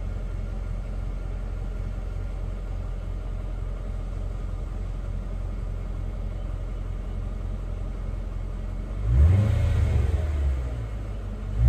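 2003 Mercedes-Benz SL500's 5.0-litre V8 idling with a steady low rumble from the exhaust. About nine seconds in it is revved once, the pitch rising and then falling back to idle.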